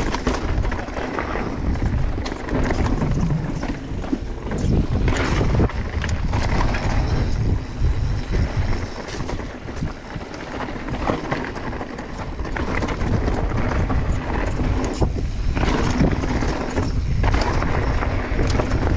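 Mountain bike riding down a rocky trail: tyres running over rocks with frequent sharp knocks and rattles from the bike over a continuous low rumble.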